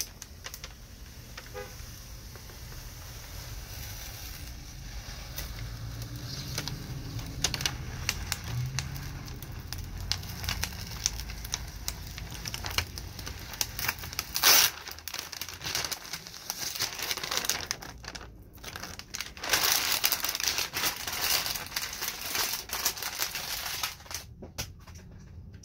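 Thin protective plastic film crinkling and crackling as it is peeled off and handled on a Lexan polycarbonate window pane, in irregular rustles with a louder burst about fourteen seconds in and a busier stretch later on.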